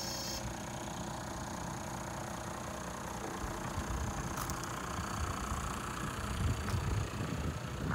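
Toyota Coaster minibus's 1HD-FTE 4.2-litre straight-six turbodiesel idling steadily, with an uneven low rumble joining it from about halfway.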